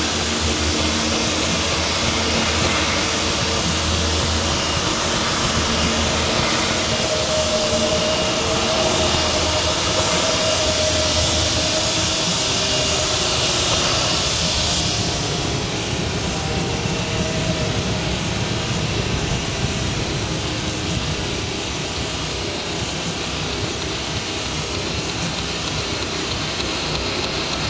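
Abstract experimental noise music from a cassette: a dense, steady wash of rumbling, hissing noise, close to a jet-engine roar, with a low hum and a faint held tone in the middle. The highest hiss drops away about halfway through.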